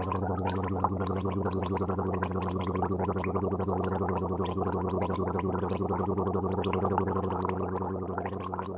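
A continuous low, steady-pitched drone overlaid with a dense, rapid bubbling crackle, like a sustained gargle, easing off slightly near the end.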